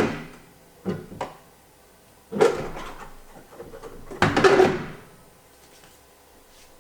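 Qpol Go polishing head being inserted into its mounting hole on a Qpol 300 M2 polishing machine: a few knocks and clunks, then a longer sliding, scraping clatter about four seconds in.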